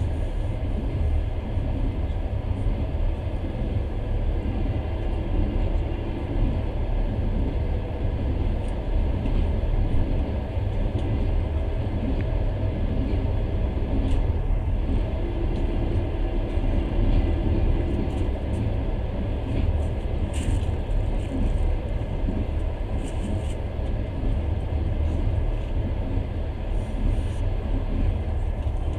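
A passenger train running steadily on the rails, heard on board as a continuous low rumble. Other trains are passing close alongside on the adjacent track.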